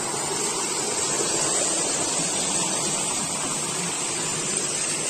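Water rushing and splashing steadily as a shallow stream spills over rock ledges into potholes in the streambed.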